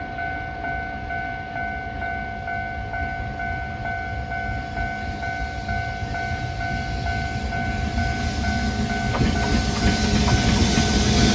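Railway level-crossing warning bell dinging about twice a second while a freight train approaches. The train noise grows steadily louder and swamps the bell near the end.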